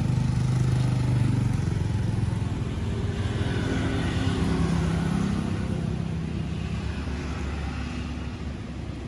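A motor vehicle engine running close by with a steady low hum, slowly fading away over the last few seconds.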